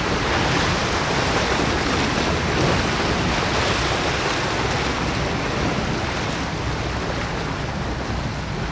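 Steady rush of wind and sea waves, with wind rumbling on the microphone.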